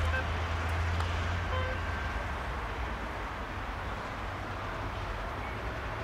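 Steady low rumble and hiss of outdoor background noise, with a deep hum that fades about a second and a half in.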